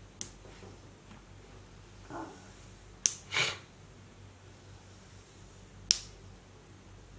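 Oil pastel drawing lines on paper: three sharp clicks about three seconds apart, with a short hiss just after the middle one, over a faint low hum.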